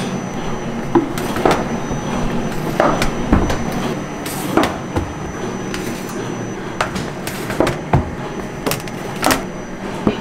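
Metal trays clattering as they are slid into a stainless steel rack, and wooden steamer frames being knocked as they are handled: about a dozen separate knocks and clatters at irregular intervals.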